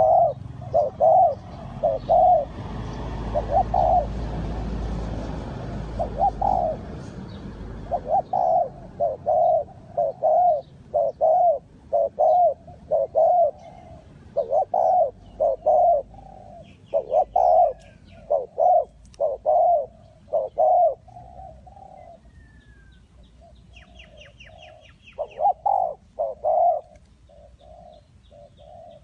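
Spotted dove cooing: a long, steady series of short coo phrases repeating roughly once a second. A stretch of low rumbling noise sits under the first few seconds, and faint high chirps from another bird come in about halfway through.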